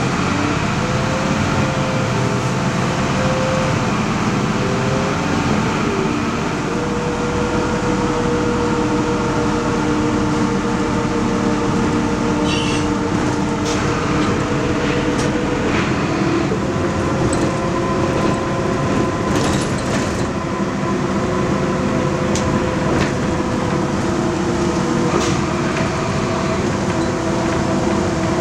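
Inside a 1997 Nova Bus LFS city bus pulling away and driving. A drivetrain whine rises in pitch as it sets off, then holds steady over the running noise, stepping in pitch a couple of times. Light rattles and clicks from the bus body come in the middle part.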